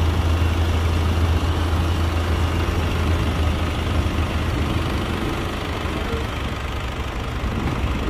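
Heavy diesel engine of a dump truck or bulldozer running at a low, steady idle, with a deep drone that slowly fades over the last few seconds.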